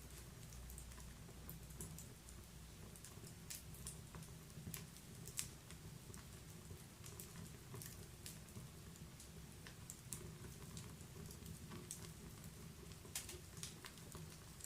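Wood fire in a fireplace crackling: faint, irregular snaps and pops over a steady low rumble, with a sharper pop about five seconds in and another near the end.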